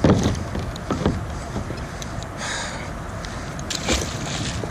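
A few hard knocks against a plastic kayak hull, then a heavy magnet on a rope splashing into the river near the end. A steady rush of water and wind runs underneath.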